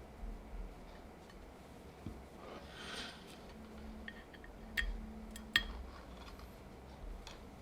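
Scattered single keystrokes on a Bakeneko60 mechanical keyboard with lubed Gateron KS-3 switches, an FR4 plate and GMK keycaps: a handful of separate key clacks a second or so apart, the loudest two about five seconds in.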